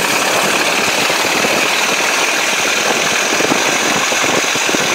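Ford Model T Speedster's engine running steadily under way, a fast, even firing patter heard from the open car, over a steady hiss of wind and tyres on a wet road.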